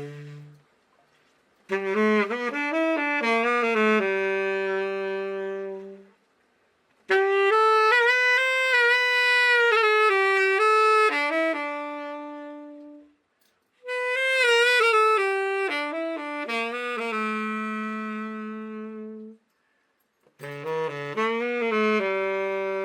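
Selmer Super Action 80 Series III tenor saxophone played unaccompanied in four short melodic phrases with brief pauses between them, several ending on a long held note: a play test of the horn after its full overhaul.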